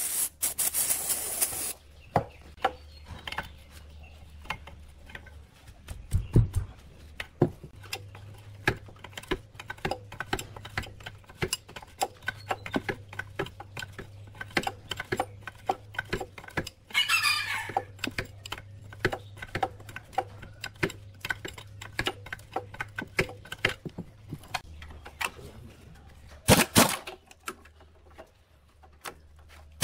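An aerosol spray can hisses in a burst at the start as it sprays the rusty underside of a plate compactor. After that come repeated clicks and metallic clinks of a socket wrench and extension working the base-plate bolts. A short hiss comes again near the end.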